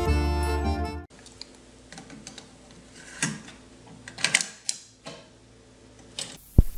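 Accordion-led music that cuts off about a second in, followed by the mechanical clicks of a Kenwood stereo cassette deck being operated by hand: a handful of separate sharp clicks from its door and piano-key transport buttons, with a heavier clunk near the end as a key latches down.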